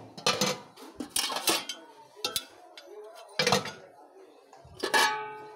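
Stainless steel pots and lids clinking and clanking as they are handled: several separate knocks, the last, near the end, ringing on briefly like struck metal.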